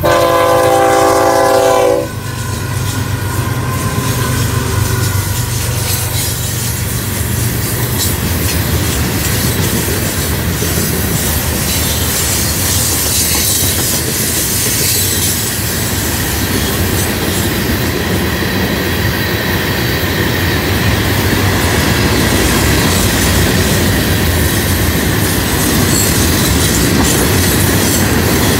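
Florida East Coast Railway freight train: the locomotive sounds a loud horn blast for about two seconds, then a long line of hopper cars rolls past with a steady rumble and clatter of wheels over the rails.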